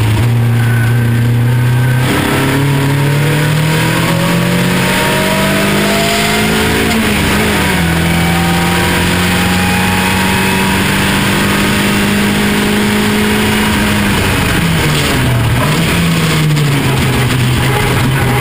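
Ford Duratec ST170 four-cylinder engine of a Striker racing car under hard acceleration, heard from the open cockpit with wind rush. The revs climb, drop sharply at an upshift about seven seconds in, then hold a steady pitch down the straight. Near the end they fall with a couple of quick rev blips as it downshifts for a corner.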